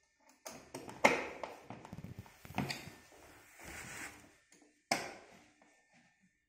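Hand screwdriver driving screws into a cabinet's white board panel: irregular clicks and scraping of the bit in the screw heads, with a few sharper knocks, the loudest about a second in.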